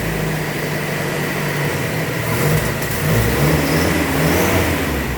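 Willys MB jeep's four-cylinder flathead Go Devil engine running steadily at idle, newly brought back to life and blowing black smoke from the exhaust.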